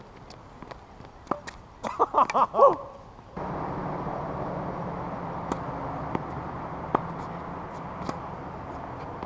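Tennis play on an outdoor hard court: scattered sharp knocks of ball hits and bounces, a brief shout about two seconds in, then a steady rushing noise that sets in suddenly and stays.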